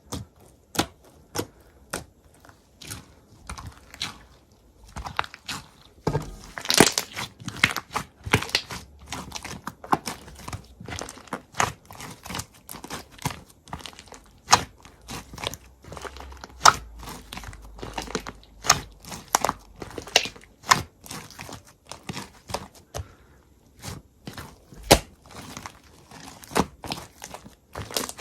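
Close, crisp crunching: an irregular run of sharp crunches and cracks, a few a second, with a denser, louder stretch about six seconds in.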